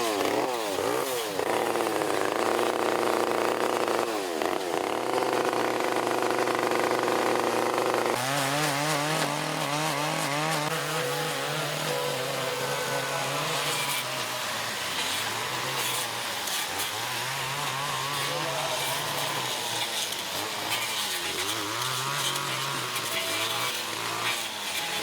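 Two-stroke chainsaws carving wood, revving up and down repeatedly as they cut. About eight seconds in the sound switches abruptly to a lower-pitched saw rising and falling in speed over a second or two at a time.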